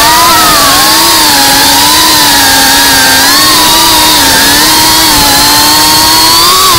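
FPV quadcopter's brushless motors and propellers whining, picked up close by the onboard camera's microphone. The pitch wavers up and down as the throttle changes through the banking turns.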